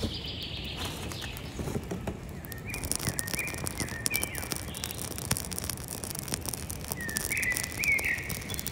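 Small kindling fire catching and crackling, the crackle growing denser about three seconds in as the flames rise. A songbird chirps in short phrases twice, around three seconds in and again near the end.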